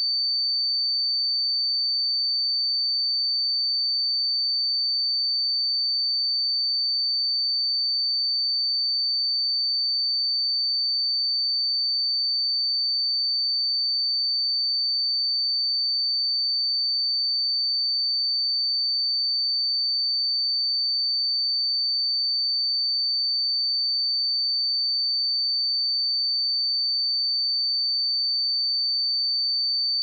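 A steady 4564 Hz pure sine-wave test tone, a single high-pitched whistle held at constant pitch and level.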